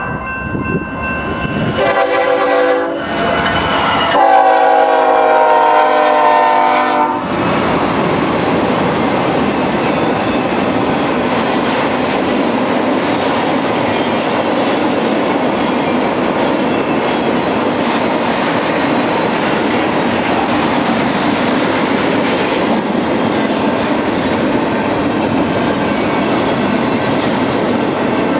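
Freight locomotive horn sounding a series of blasts for a grade crossing, the last one long and loud, cutting off about seven seconds in. Then the steady clatter of a long intermodal train's well cars rolling past on the rails.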